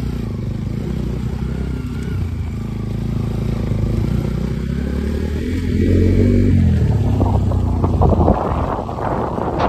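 Motorcycle engine running on the move, its pitch rising about five seconds in as it speeds up, then a rough rushing noise, like wind buffeting the microphone, takes over in the last few seconds.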